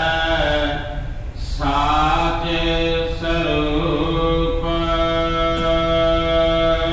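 Gurbani kirtan: a voice chanting a Sikh hymn in long melodic phrases, with a short break about a second in and a long held note in the second half, over a steady low hum.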